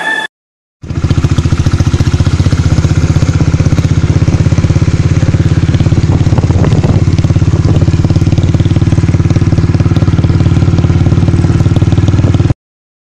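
Motorcycle engine running at a steady idle, its exhaust pulsing evenly and rapidly. It starts abruptly just under a second in and cuts off abruptly near the end.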